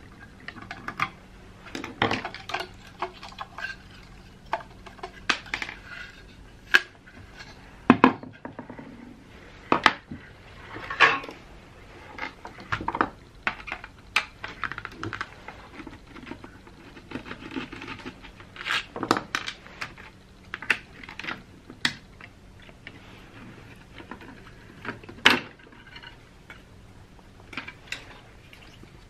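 Irregular clicks, clinks and knocks of a hand teardown: a screwdriver working on the plastic case of a HandPunch GT-400 hand scanner, with loose screws, tools and circuit boards handled and set down on a workbench. The sharpest knocks come about eight seconds in and again near the end.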